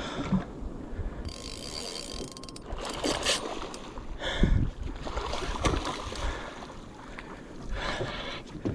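Fishing reel being cranked against a fighting fish, its gears whirring and clicking, with scattered knocks from the boat.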